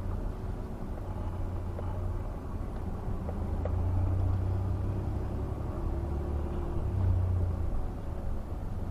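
Low, steady rumble of a 2012 Chevrolet conversion van driving along, heard from inside the cab. It swells a little about halfway through and again near the end.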